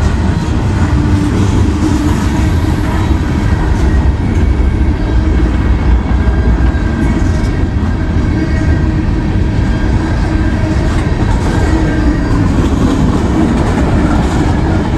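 Freight train cars rolling past at close range: a steady, loud rumble and clatter of steel wheels on the rails.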